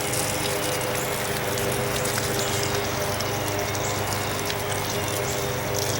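Electric sump pump running steadily with a constant hum, pushing rain-barrel water through a garden hose, with the rush of flowing water.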